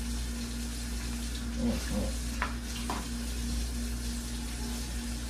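Kitchen tap running steadily into a stainless steel sink, a constant hiss. Between about two and three seconds in come a few light knocks as pork roasts are handled and set into a roasting pan.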